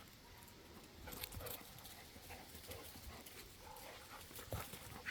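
Faint dog noises among scattered small knocks and rustles.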